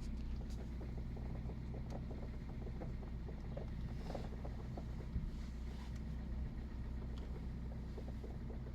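Kia Rio (third generation) idling, with faint irregular clicks and one sharper knock about five seconds in: the extraneous noise that comes when the steering wheel is turned.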